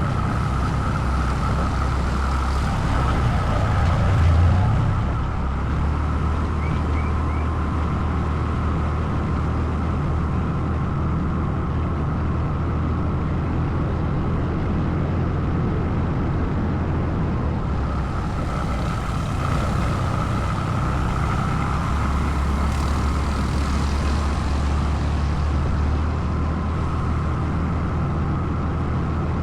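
ATV engine running at a steady pace with a constant low hum, with a brief louder swell about four seconds in.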